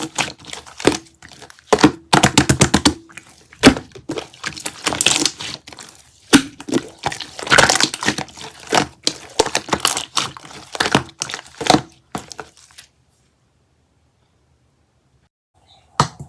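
Dense, irregular crackling and crunching, like crisp material being squeezed or crushed by hand, that stops about 13 seconds in. A different sound with a steady tone starts briefly just before the end.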